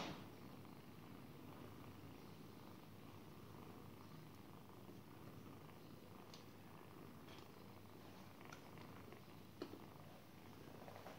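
Cat purring steadily and faintly, with a few soft ticks over it, the sharpest one near the end.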